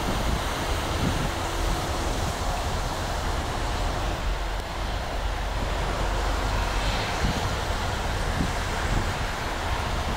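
Wind buffeting the microphone over a steady low rumble from Canadian Pacific diesel locomotives in the rail yard.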